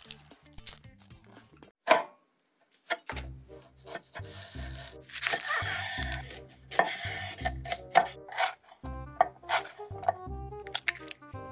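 Chef's knife cutting on a wooden cutting board, slicing through a bundle of green onions and then dicing carrot, with sharp knocks of the blade on the board. Background music plays under it.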